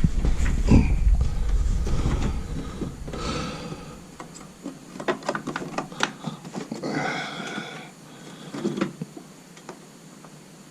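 A RAM stick being pressed and worked into a desktop motherboard's memory slot: scattered plastic clicks, knocks and handling scrapes, with a low rumble of handling over the first few seconds and two short pitched sounds about three and seven seconds in.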